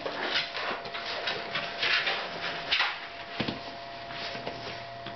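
Seven-week-old Ca de Bou puppies play-fighting, with irregular scuffling and short rough bursts of noise, the loudest about two and three seconds in.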